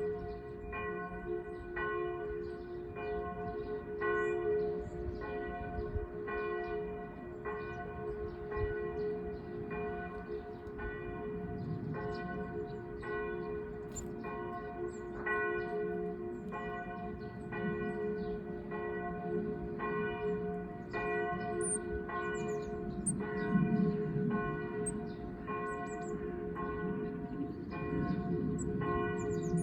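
Church bells of the Klosterkirche Münchaurach pealing steadily, a fresh stroke roughly every two-thirds of a second over a lingering hum.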